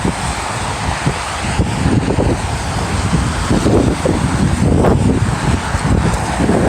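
Snowstorm wind buffeting the microphone, a loud gusty rumble that rises and falls.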